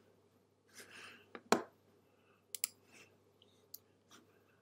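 A few isolated computer mouse clicks, the loudest about a second and a half in.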